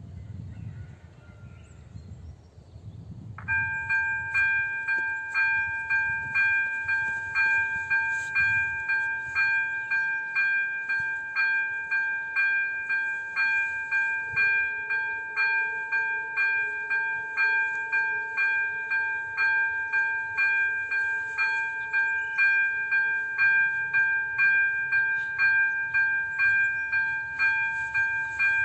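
Electronic warning bell (type 02) of an AŽD 97 level crossing switches on about three and a half seconds in and rings steadily at about two strikes a second. It signals that the crossing has activated for an approaching train.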